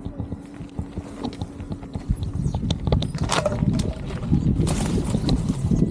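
Bicycle riding over a rough dirt track: a quick run of irregular knocks and rattles that grows busier after about two seconds, with two short bursts of hiss.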